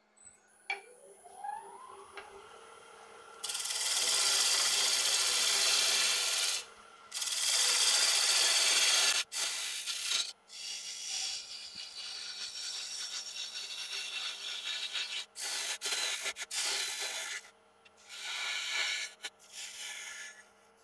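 Wood lathe motor whining up to speed about a second in, then a turning tool cutting the spinning green sycamore blank in several long passes with short breaks, shavings flying. Near the end the motor winds down.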